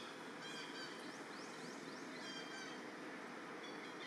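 Short, high rising bird chirps, several in a row about half a second to two and a half seconds in, over a steady hiss of outdoor background noise.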